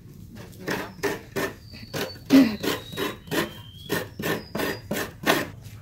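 A half of a dry, mature coconut scraped by hand against a coconut grater blade: rasping strokes, about three a second, shredding the white flesh.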